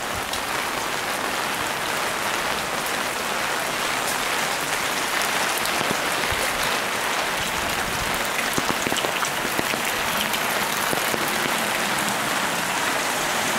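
Steady rain falling on wet pavement and its surroundings, an even hiss that holds at one level throughout.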